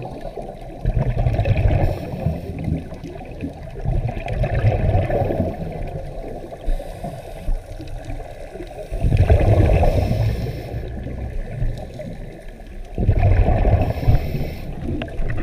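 Scuba divers' regulator exhaust bubbles heard underwater through a camera housing: a muffled, gurgling rumble rising in four breath-length bursts about four seconds apart.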